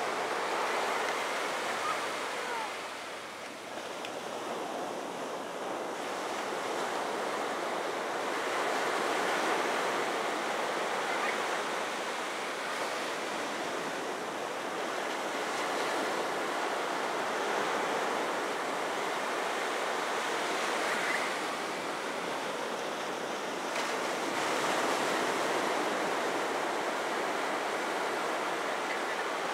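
Small ocean waves breaking and washing over the shallows: a steady surf hiss that swells and eases as each wave comes in.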